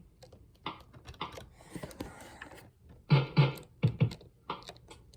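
Electronic keyboard's built-in sound-effect buttons being pressed: a string of short electronic effect sounds and clicks, with two louder pairs of hits about three and four seconds in.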